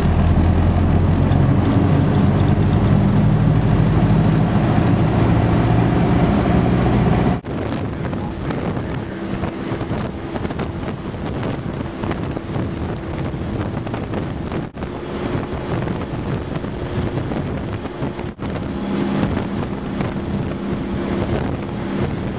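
Engine and road noise heard from inside a moving vehicle: a steady, loud engine hum that gives way at an edit about seven seconds in to quieter running noise with wind, broken by short gaps at later edits.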